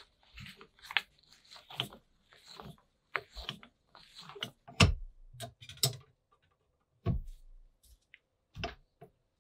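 Metal parts of an ice cream maker's gear frame being handled and fitted together: irregular clinks, taps and scrapes with rustling, and a few sharper knocks about five, six, seven and eight and a half seconds in.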